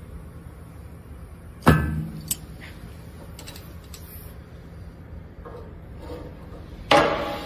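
Two sharp clicks or cracks, one about two seconds in and one near the end, each dying away quickly, with a few faint ticks between them over a low steady hum.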